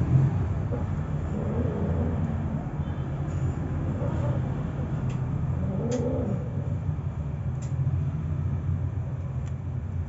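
Cats mating: a few short low cries about two, four and six seconds in, over a steady low rumble.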